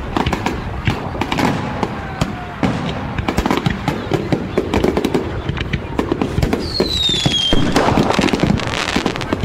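Fireworks display: dense crackling and popping of bursting shells over a steady low rumble of booms, with a short falling whistle about seven seconds in.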